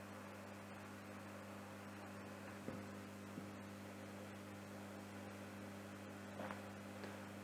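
Steady electrical mains hum with a low hiss behind it, with two faint clicks around the middle.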